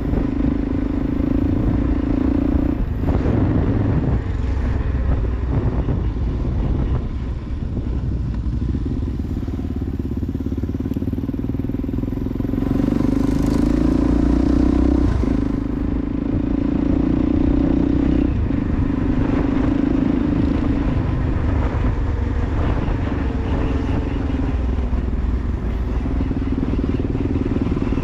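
Motorcycle engine running steadily while riding, heard from the bike itself, with wind and road noise underneath. The engine note dips briefly a few times.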